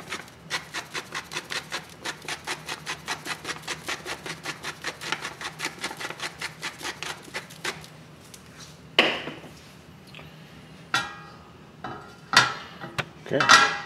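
Salt mill being twisted, a rapid, even run of grinding clicks for about seven seconds. Then a few separate knocks and clanks, the loudest near the end, as a stainless steel pan is handled on the stove.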